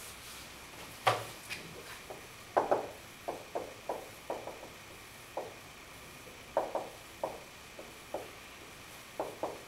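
Dry-erase marker writing on a whiteboard: a run of short squeaky strokes and taps, coming in small clusters.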